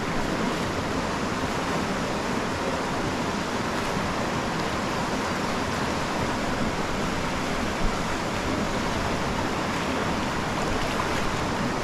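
Whitewater rapid rushing steadily: the even roar of fast water pouring over rocks and through a hole.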